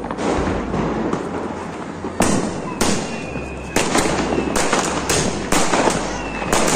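A ground-lit Diwali firework firing shots in quick succession, about two a second, starting about two seconds in. Faint whistles run between the cracks.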